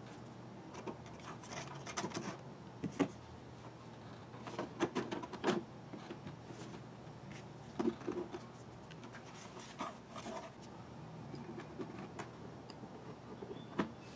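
Hands handling a Nissan Skyline R33 GT-R plastic dashboard and its metal airbag lid: scattered clicks, knocks and rubs, over a faint steady low hum.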